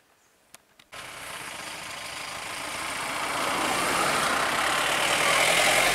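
Near silence with a few faint clicks, then about a second in, engine noise of small vehicles cuts in suddenly and grows steadily louder as a three-wheeler and motorcycles drive close past.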